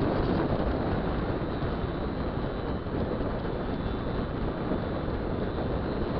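Steady wind rush on the microphone over a 50 cc two-stroke scooter engine running at cruising speed.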